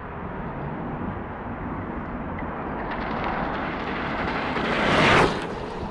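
Extreme Bull K4/K5 electric ride passing close by at speed: a rushing tyre-and-motor noise that builds over a few seconds, is loudest as it goes past, then drops away suddenly.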